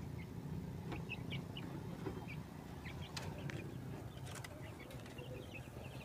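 Faint, scattered short calls of chickens, with a few soft clicks and rustles of the straw-lined bamboo nest basket being handled.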